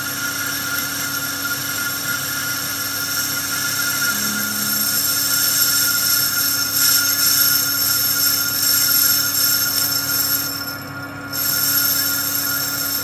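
Metal lathe turning a Holset H1C turbo compressor plate, the cutting tool boring out its centre to take an HX40 thrust collar. It makes a loud, steady, high-pitched whining sound from the cut. The highest part drops away for about a second near the end, then comes back.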